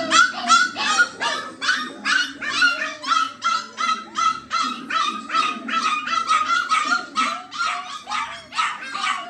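Dog barking rapidly and repeatedly in high-pitched yaps, about three a second, without a break.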